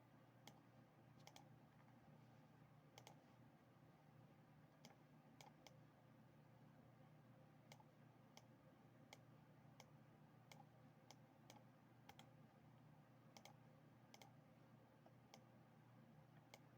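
Faint computer mouse clicks at an irregular pace, some in quick pairs, over a low steady electrical hum.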